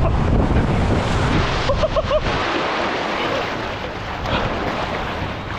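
Water rushing and wind buffeting the microphone as a rider slides down the last stretch of a water slide, then the splash into the pool about two seconds in, followed by quieter sloshing water.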